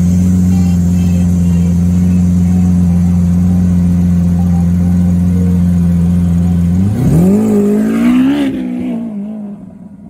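Lamborghini Aventador's V12 idling close by with a steady, deep note. About seven seconds in, it revs with a rising, wavering pitch as the car pulls away, and the sound fades off near the end.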